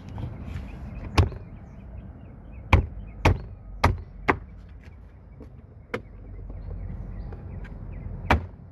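Plastic door trim being pressed into place, its clips popping in: seven sharp snaps and knocks at irregular intervals.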